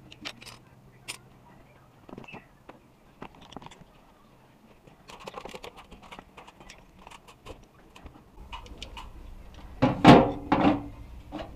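Scattered clicks, knocks and rattles of hand tools and equipment being picked up and handled, with a louder clattering knock about ten seconds in.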